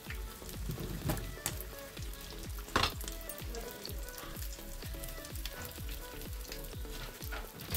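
Corn-dough empanadas deep-frying in sunflower oil, a steady sizzle and crackle. A few sharp clicks of a utensil against the pan come as the pieces are lifted out, the loudest just under three seconds in.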